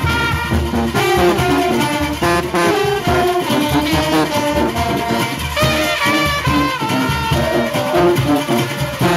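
Junkanoo band's brass section of trumpets and trombones playing a loud, lively melody over percussion.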